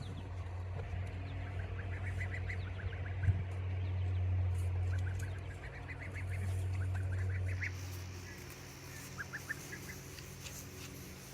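Chickens clucking in short, quick runs of notes, over a steady low hum that swells and fades.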